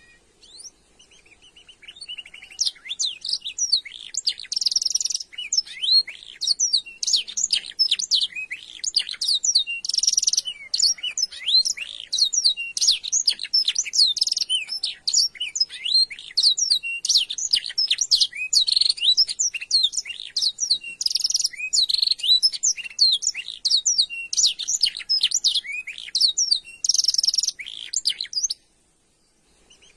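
Song-trained domestic canary singing one long, unbroken run of rapid trills and chirps, cutting off suddenly near the end.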